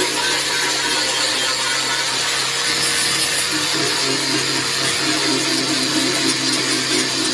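Angle grinder running steadily, cutting and grinding out the rotten steel of a car's front wing.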